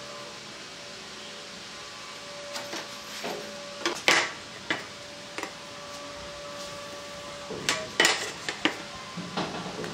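Clattering knocks of a long aluminium profile being picked up and laid down on a plywood sheet, in two main clusters: one about four seconds in and one about eight seconds in, over a faint steady hum.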